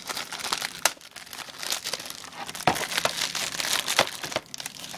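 Plastic on a DVD case crinkling and crackling as fingers handle and unwrap it, with a few sharp clicks.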